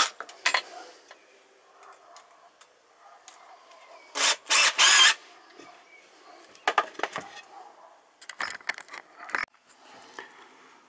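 Handling noise: irregular knocks, clicks and clatter as a wooden batten and tools are moved about, with a few short, loud rushes of noise near the middle.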